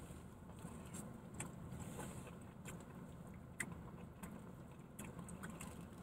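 Faint steady low background rumble with scattered small clicks and ticks of someone eating.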